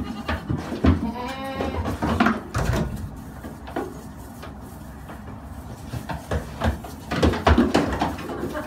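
Young goat kids bleating, with one clear drawn-out bleat about a second and a half in, over knocks and clatter from their hooves on wooden boards that grow busier near the end.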